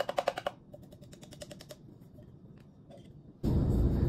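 Rapid light tapping, about ten taps a second, as a coffee grinder's jar of ground coffee is knocked against the funnel to empty the grounds into an Aeropress. The tapping fades out in under two seconds, and near the end a steady low rumble cuts in suddenly.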